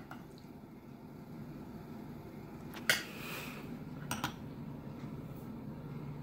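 A metal spoon clinks once against a glass bowl of sauce about three seconds in, then taps twice more, lightly, a second later, over a steady low room hum.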